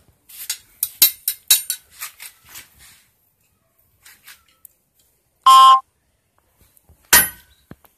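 Metal on metal from a forged golok blade being tested over a steel anvil block: a quick run of light metallic taps and clinks in the first few seconds, a short, very loud ringing tone about halfway through, then one sharp metal clang near the end.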